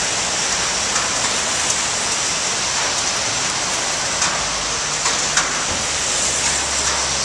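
Steady rain falling on an umbrella held close by, loud, with a sharper tick of a single drop here and there.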